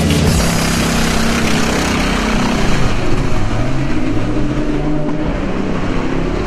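Mercedes SLS AMG GT3 race car's V8 revving as it accelerates away down the pit lane, the engine note rising several times.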